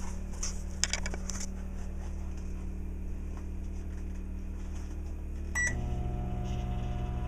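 Microwave oven humming steadily, with a few keypad clicks about a second in. A short beep comes about five and a half seconds in, after which the hum changes and grows fuller as the microwave starts running on the inverter generator's power.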